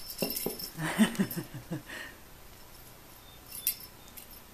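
F6 Savannah cat leaping and scrambling close by: a quick cluster of thumps and scuffles over about two seconds, loudest about a second in, then a single sharp click.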